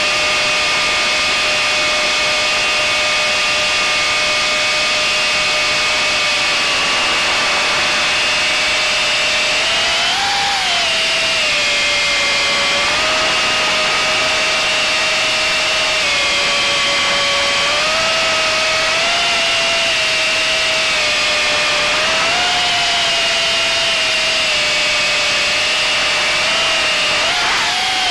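Quadcopter motors and propellers whining close to the onboard camera, a steady pitched hum that rises briefly in pitch several times as the drone speeds up.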